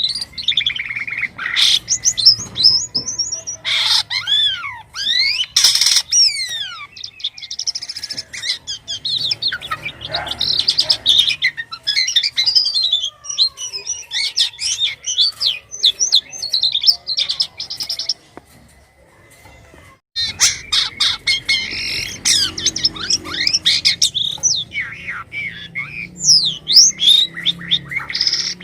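Jalak kapas starling singing in a long, varied run of rapid chirps, whistles and rising and falling glides, with a short break about two-thirds through before it starts again.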